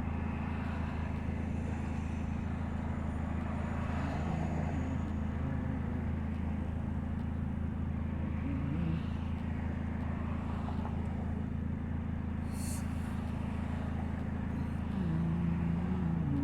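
A 2000 Nissan Altima's 2.4-litre four-cylinder engine running with a steady low exhaust drone. The exhaust is leaking at the braided flex pipe.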